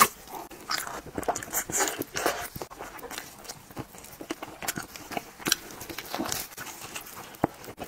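Close-miked eating of a sauced pork trotter: biting, gnawing and chewing the meat and tendon, with irregular wet smacks and clicks.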